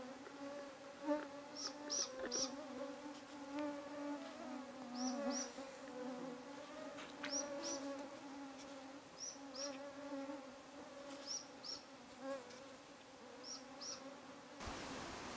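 Flying insects buzzing with a steady hum, while a small bird gives short high chirps in twos and threes about every two seconds.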